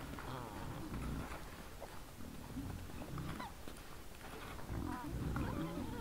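A group of wild boars grunting repeatedly at a feeding spot, with a few short, higher squealing calls among the grunts.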